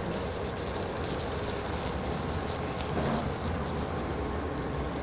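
Fresh mackerel sizzling steadily in chu chee curry sauce in a frying pan, with faint crackling pops.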